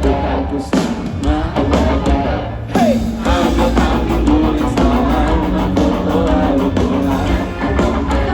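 Live rock band playing, with a singer over guitar, bass and drums.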